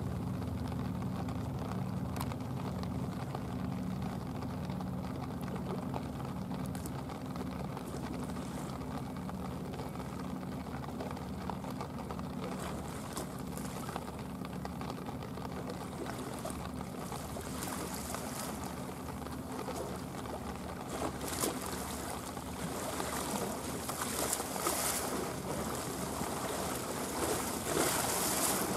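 A boat's engine drones steadily. From about halfway, wake waves wash in, growing louder and splashing against the stone quay steps near the end.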